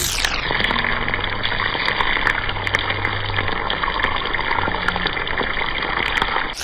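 A steady, muffled rushing noise, like gushing water, with no clear strokes or rhythm.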